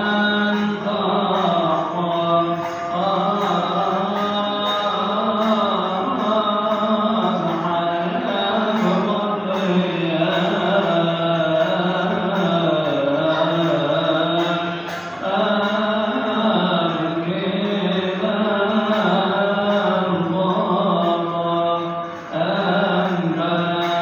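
Coptic liturgical chant sung by male voice, long melismatic notes drawn out with slow turns of pitch, broken only by short pauses for breath about fifteen and twenty-two seconds in.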